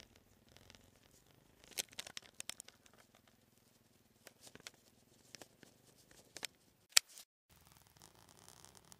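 Clothing and a backpack rubbing and knocking against the camera: a run of scratchy rustles and sharp clicks, the sharpest about seven seconds in, then a faint steady hiss.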